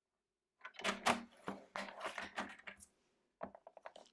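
Paper trimmer's scoring blade drawn along its rail to score a strip of cardstock: a scraping, rattling slide starting about half a second in and lasting about two seconds, followed by a few light clicks near the end.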